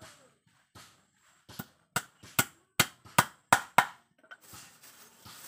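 A hammer knocking on a small teak-wood frame: a run of about seven sharp blows, two or three a second, with a few fainter taps around them.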